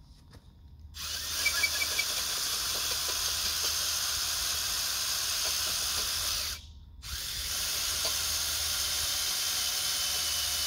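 Cordless drill spinning a K-Brands multi-purpose auger bit into hard, dry dirt, the bit barely going any deeper. The drill starts about a second in, stops briefly about six and a half seconds in, then starts again.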